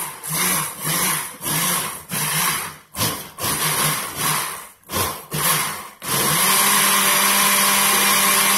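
Rival countertop blender pulsed in a string of short on-off bursts, then held on about six seconds in and running steadily, chopping a thick kale and fruit smoothie.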